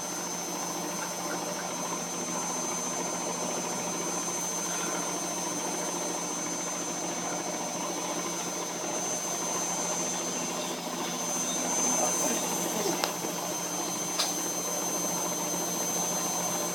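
Washing machine running mid-cycle, its drum turning with a steady motor hum and a thin, constant high whine. Two faint clicks come a little over a second apart in the later part.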